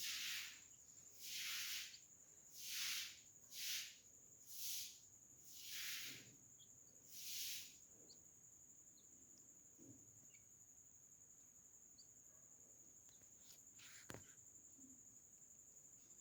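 A steady, faint, high cricket-like insect trill with a run of short hissing bursts about a second apart in the first half. Faint, tiny high chirps follow.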